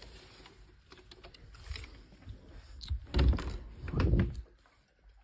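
Handling noise from a handheld phone camera: scattered light clicks and knocks, then two heavy rubbing thumps about three and four seconds in as the phone brushes against the cabin wall.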